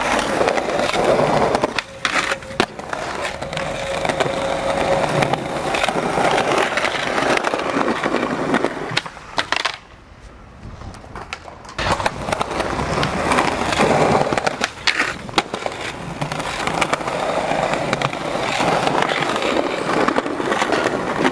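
Skateboard wheels rolling over smooth concrete, a continuous roar broken by sharp clacks of the board. About ten seconds in, the rolling drops away for a couple of seconds, then picks up again.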